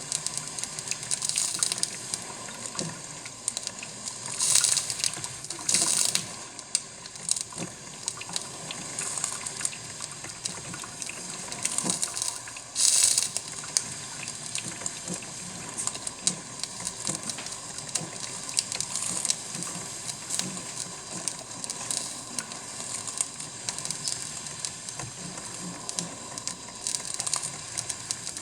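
Cuisinart drip coffee maker brewing: hot water gurgling and sputtering, with irregular hissing spurts, the loudest about four, six and thirteen seconds in.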